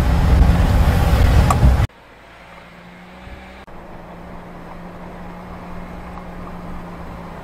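Vehicle driving slowly on a rough forest track: loud rumbling engine and road noise that drops off abruptly about two seconds in to a much quieter, steady low engine hum, which slowly grows louder.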